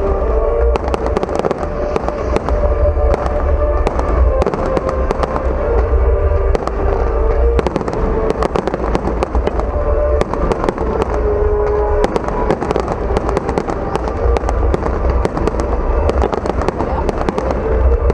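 Fireworks display: a dense, continuous run of bangs and crackles from exploding shells, with heavy low booms.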